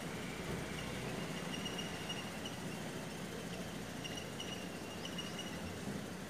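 Faint steady background noise with a low hum, broken by short, high chirps that come every second or so.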